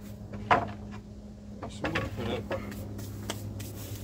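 Rough-sawn cedar boards knocking together as a board is set down on the sawhorse stack: one sharp wooden knock about half a second in, then a few lighter knocks and scrapes. A steady low hum runs underneath.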